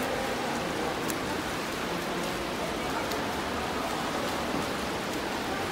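Indoor swimming pool ambience: a steady wash of splashing from swimmers racing in the lanes, echoing around the pool hall.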